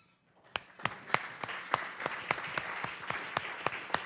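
Audience applauding, starting about half a second in, with sharp single claps standing out at a steady pace of about three a second.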